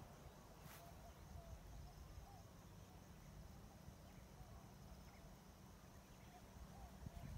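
Near silence: faint outdoor ambience with a low rumble, faint short chirps recurring throughout and a single faint click under a second in.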